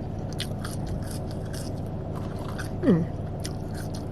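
Eating and food-handling sounds, small clicks, crunches and rustles, over a steady low hum inside a car. About three seconds in, a woman makes a brief falling "hm".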